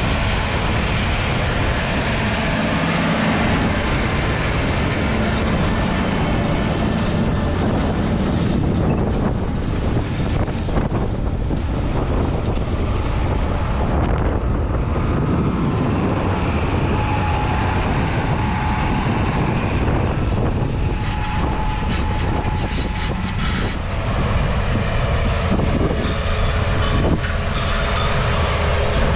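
Large tractor and the tractor-drawn sugar beet harvesting equipment running steadily in the field, a continuous machine noise with scattered knocks and rattles.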